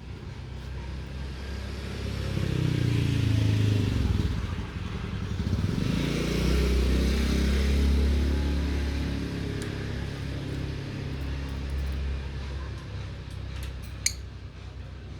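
Engine of a motor vehicle passing by outside, growing louder and dropping in pitch as it goes past, then a second engine passing soon after and fading away. A single sharp click near the end.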